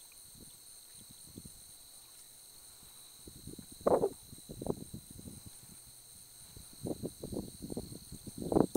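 Steady high-pitched chorus of night insects such as crickets. From about three seconds in it is overlaid by irregular short rustles and soft knocks, loudest at about four seconds and in a cluster near the end.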